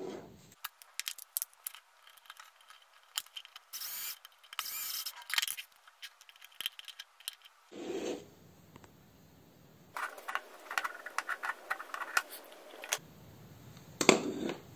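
Handling a plastic power strip and its cord: irregular clicks, rattles and scraping of plastic and metal parts, with a sharp click near the end.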